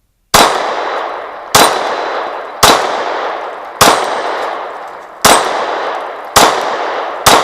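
Seven shots from a Glock 26 9mm pistol, spaced roughly a second apart, each trailing off in a long echo. A faint metallic ring of steel plates carries between the shots.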